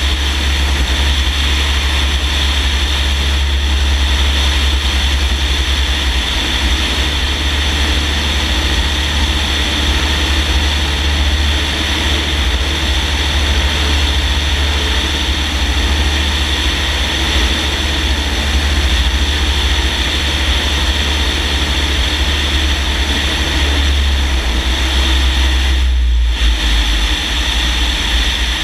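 Single-engine propeller plane in flight, its engine and propeller running with a steady drone, heard from a camera mounted under the wing with heavy wind on the microphone. The sound dips briefly about 26 seconds in.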